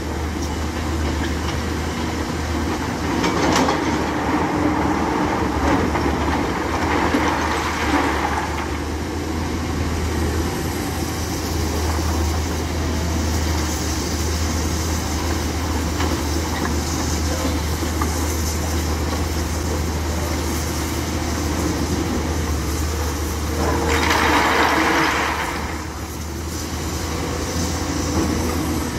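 Hyundai 210 crawler excavator's diesel engine running with a steady low hum, swelling louder twice as the machine works, over the rush of water pouring through a weir.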